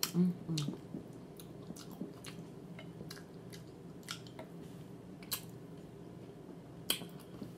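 A person chewing a mouthful of food close to the microphone, with scattered wet mouth clicks and smacks and a short hum of voice right at the start.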